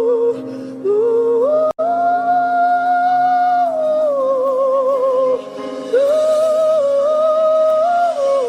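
Slow worship music: a single melodic line of long, held notes with vibrato, sung or hummed, moving between pitches over a steady sustained keyboard pad, with a brief dropout about two seconds in.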